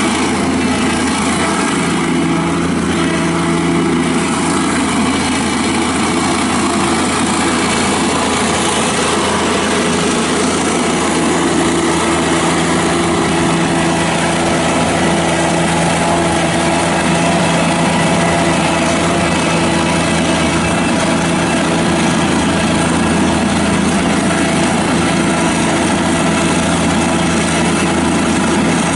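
Toro Dingo TX525 mini track loader's Kubota diesel engine running steadily, its note firming up about two seconds in.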